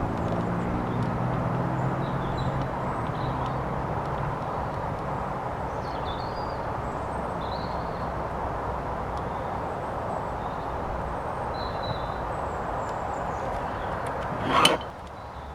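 Steady outdoor background noise like distant traffic, with a low engine hum that fades over the first few seconds and scattered bird chirps. One sharp knock comes near the end, after which the background drops away.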